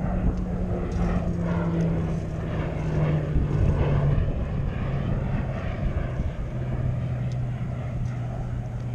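A low engine drone that falls slowly in pitch as it passes by, over the wash of water stirred by wading.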